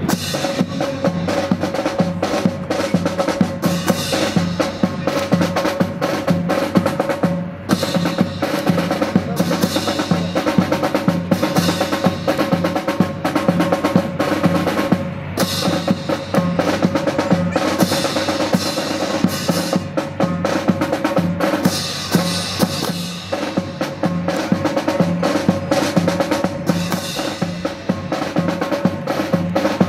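A steady marching drum cadence of snare and bass drum keeping time for a rifle drill team marching in step.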